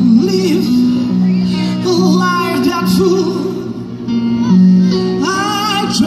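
Live band music: a man singing a wavering melody over held keyboard and bass notes, electric guitars and drums.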